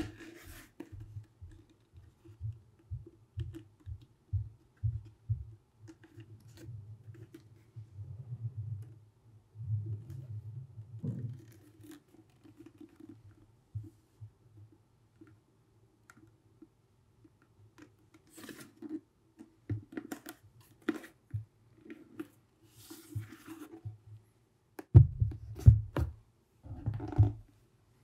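Handling noise from a new horsehide leather boot with a rubber sole being turned over in the hands: scattered rubbing and soft knocks, with a cluster of louder knocks near the end.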